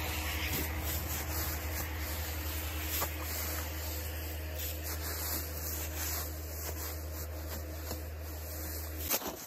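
Dry fallen leaves rustling and crunching as a digging tool is worked down through a deep leaf mulch. A steady low rumble runs underneath and cuts off suddenly near the end.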